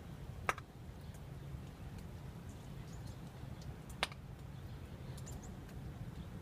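Steady low outdoor rumble with two sharp ticks, one about half a second in and one about four seconds in, and a few faint high ticks between them.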